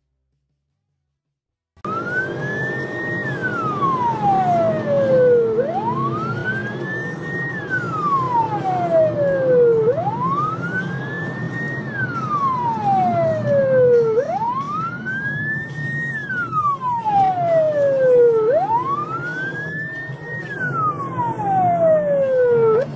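Police car siren wailing, starting about two seconds in: each cycle rises quickly and falls slowly, about every four seconds, five times. Under it runs a steady low rumble of engine and road noise.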